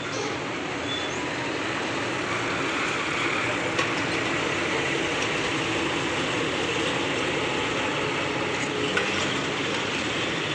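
Steady road traffic noise with heavy vehicles' engines running, growing a little louder about three seconds in.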